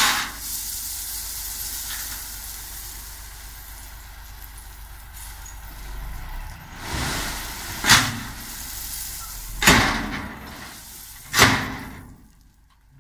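Ten-wheel dump truck tipping a load of crushed-rock road base: the gravel pours from the raised bed with a steady rushing hiss over the low hum of the diesel engine. Four short loud bursts cut through it, one at the start and three in the second half, and the sound dies away near the end.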